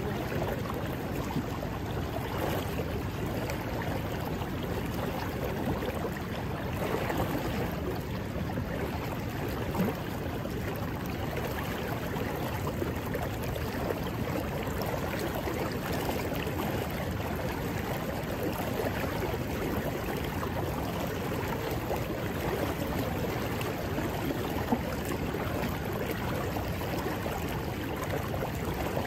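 River current flowing steadily, a constant rush of moving water.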